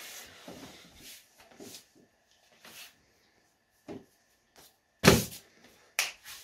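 Handling noise: a few short knocks and rustles as a cardboard box is set down and a person shifts about, with one sharper knock about five seconds in.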